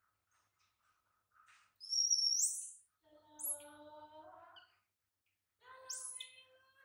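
Baby macaque crying for its mother: three high, shrill squeals, the loudest about two seconds in, with lower wavering moans between and under them. These are the lonely calls of an infant left alone.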